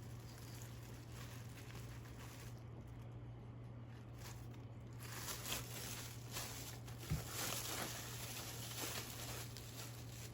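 Light handling noises: soft taps and rustling from about five seconds in, with one sharper knock a couple of seconds later, over a steady low hum.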